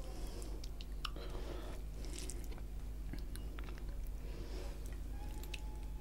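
Close-miked eating sounds of a person eating chicken curry and rice by hand: chewing and wet mouth clicks and smacks, scattered and irregular, over a steady low hum.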